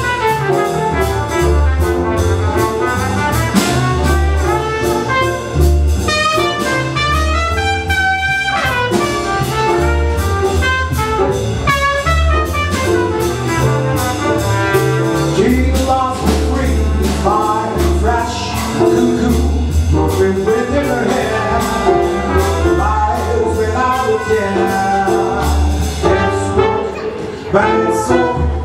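Live small-group jazz: a trumpet solos over piano, a walking double bass and a drum kit.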